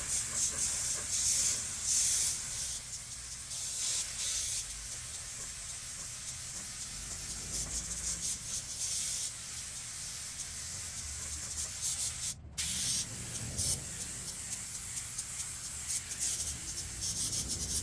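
Primer being sprayed onto a masked-off car body repair: a hissing spray that comes in uneven pulses over the first few seconds, then runs steadier, with one short break about twelve seconds in.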